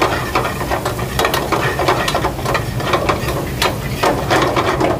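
Metal ladle scraping and knocking against a stainless-steel frying pan as a masala is stirred and fried over a gas flame, in quick irregular clatters over a steady sizzle.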